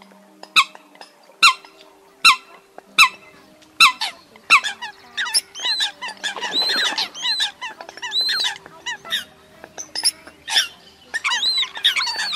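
Eurasian coots calling: sharp, high single calls about one a second at first, then from about five seconds in a denser run of overlapping calls from several birds.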